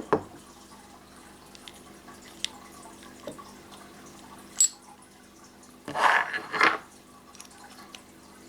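Handling noise while a CO2 capsule is oiled for an air rifle: a few small clicks and taps, a sharper click about halfway through, and two short scraping rustles about six seconds in.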